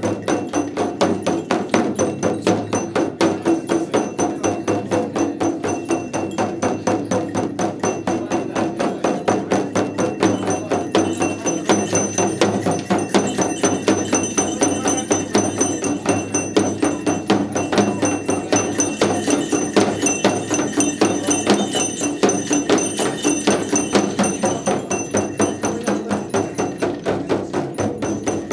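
A shaman's dhyangro frame drum beaten with a curved stick in a fast, even beat, with brass bells jingling and ringing along with it.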